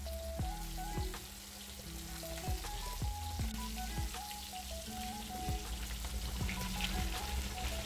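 Flour-coated lamb shanks sizzling as they brown in hot oil in a stainless steel frying pan, with background music playing over it.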